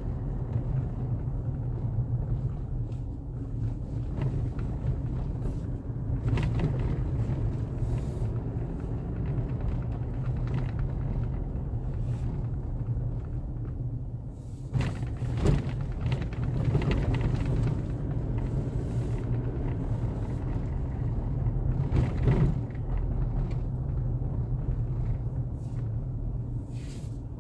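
Vehicle travelling along a rough road: a steady low rumble of engine and road noise, with several short jolts or knocks as it goes over bumps.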